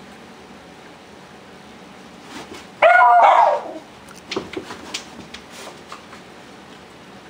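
A dog gives one loud, drawn-out bark about three seconds in, followed by a few short sharp sounds.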